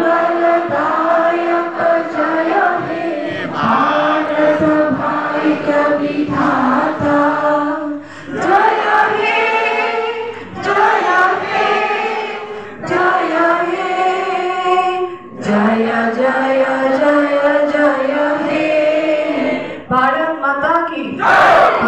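A standing crowd of men and women singing a song together in unison, in long held phrases with brief pauses for breath. Near the very end the singing gives way to a loud group shout.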